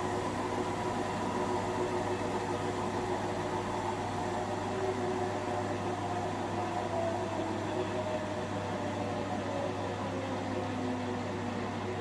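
Indesit washing machine on its high-speed final spin, running smoothly with a steady low hum and whine. Over the second half the whine tones slowly fall in pitch as the drum begins to slow.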